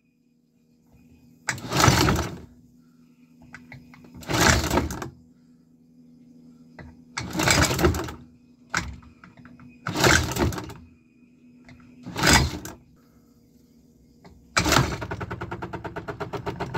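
Homemade 3D-printed V-twin fuel-injected engine being cranked over in five short bursts of about a second each. About fifteen seconds in, a fast, even clatter starts and keeps going.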